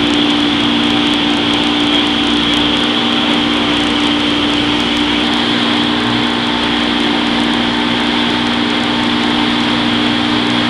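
Tow boat's engine running steadily at towing speed, holding one even pitch, over the rush of water in its wake.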